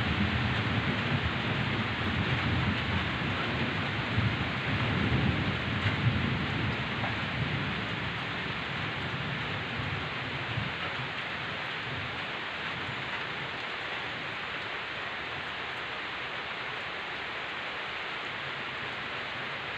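Steady heavy rain, with a low rolling rumble of thunder through the first part that dies away about eight seconds in.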